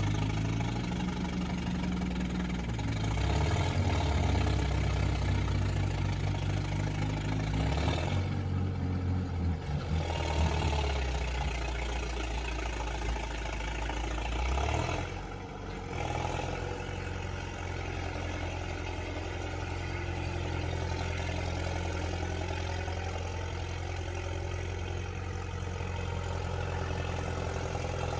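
Heavy diesel engines of logging equipment running, their pitch rising and falling. The sound changes abruptly about eight seconds and again about fifteen seconds in.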